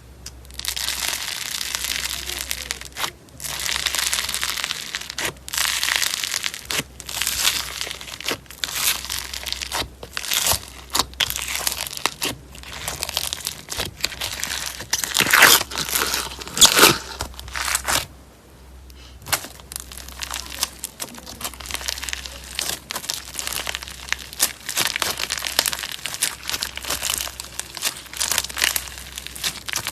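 Slime being squeezed, stretched and poked by hand, giving dense crackling, crinkling and popping sounds in repeated bursts.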